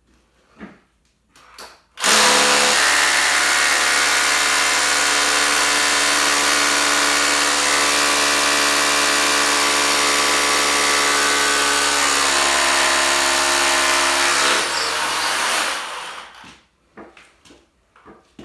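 Milwaukee 2712-20 SDS Plus rotary hammer drilling into concrete. It runs steadily for about twelve seconds, then winds down and stops. Light knocks and handling noises come before and after.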